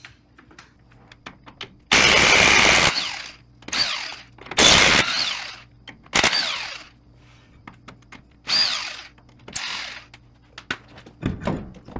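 Impact wrench spinning off left-hand-threaded lug nuts from a truck's rear wheel, in about six separate bursts, the longest lasting about a second near the start. Small metallic clicks fall between the bursts.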